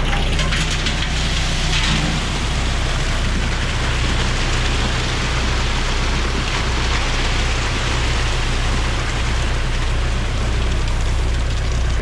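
Ready-mix concrete truck running with a steady low engine drone while wet concrete pours down its discharge chute in a continuous gritty rushing.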